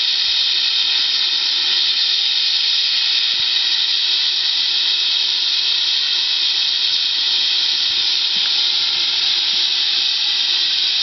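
Miniature 7¼-inch gauge live-steam locomotive hissing steam, a steady even hiss that runs unbroken.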